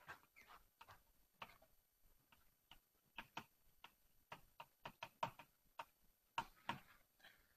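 Chalk writing on a blackboard: faint, irregular taps and clicks, a few scattered at first, then coming more densely from about three seconds in.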